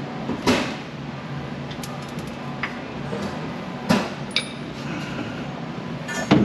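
Three sharp metallic knocks about three seconds apart, the last a short clattering rattle, with lighter clinks between them.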